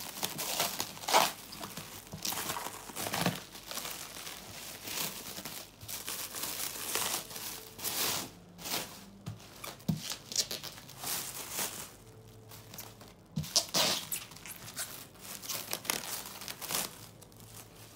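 Clear plastic wrap crinkling and rustling in irregular crackles as the film-wrapped cardboard box is handled and turned over.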